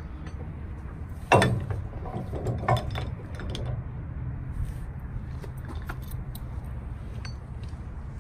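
Steel stabilizer arm of a drop hitch handled and swung into place: a loud metal clank about a second in, another near three seconds, then scattered light clinks, over a steady low rumble.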